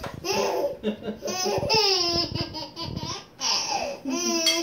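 A baby laughing in a string of short, high-pitched bursts, some sliding up and down in pitch, at a toy truck held in front of her.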